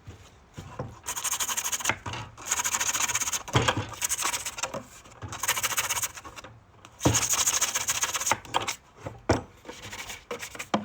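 Sandpaper rubbed by hand over a plastic 5-gallon bucket, smoothing the edges of freshly cut holes: four bouts of quick scratchy strokes with short pauses and a few light knocks between them.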